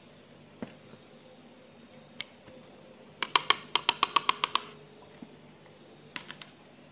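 A quick run of about a dozen light, hard clicks and taps over about a second and a half, with single clicks before it and a few more near the end: small plastic painting supplies, among them a round red-rimmed paint or water container, knocked and handled on the table.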